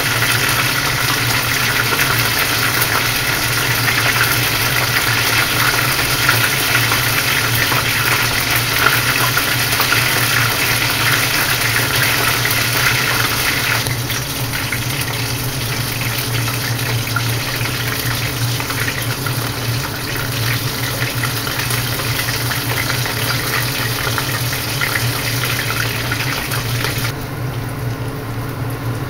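Shrimp tempura sizzling and crackling in a pot of hot deep-frying oil, over a steady low hum. The sizzle turns a little quieter about halfway through and noticeably duller near the end.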